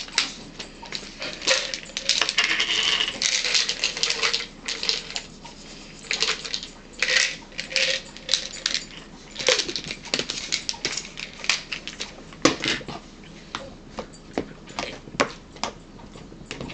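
Crinkling and crackling of a wrapper being handled and crumpled in the hands, a run of irregular sharp clicks that is densest in the first half and thins out later.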